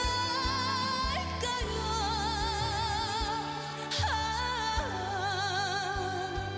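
A female vocalist sings a slow Korean ballad over a band accompaniment, holding long notes with a wide, even vibrato. There is a slide down in pitch about four seconds in.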